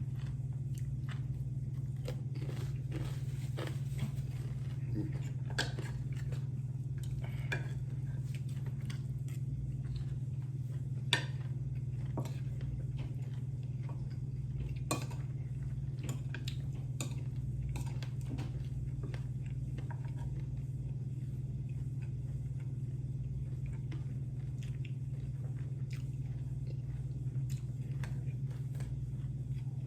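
Chewing and crunching of crisp fried pork jerky, with scattered clicks of cutlery and dishes, over a steady low hum.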